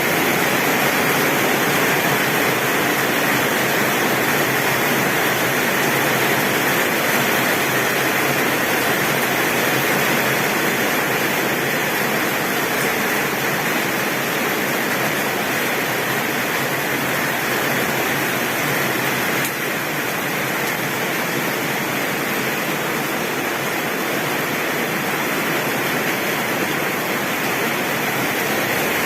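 Torrential rain pouring steadily on a tin roof, an even dense hiss with no thunder.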